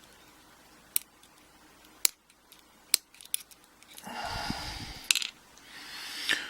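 Sharp little metallic clicks as springs and pins are picked out of a pin-tumbler Euro lock cylinder's chambers, with a longer rustle of handling in the middle.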